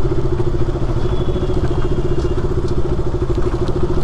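KTM RC 200's single-cylinder engine running steadily while the bike is ridden, with an even throb and no change in revs.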